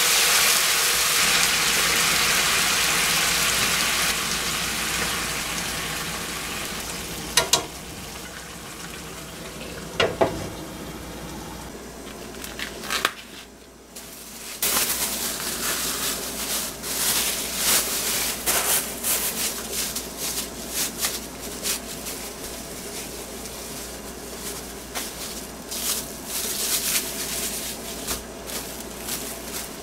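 Mirin and sake sizzling as they hit a hot frying pan of sliced lotus root and carrot, the sizzle dying down over about ten seconds, with two short knocks partway through. After a brief lull, plastic cling film and a plastic bag crinkle in many small crackles as they are handled.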